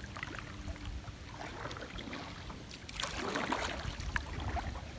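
Kayak paddle strokes splashing in slow river water, the loudest stroke a little after halfway, over a steady low rumble.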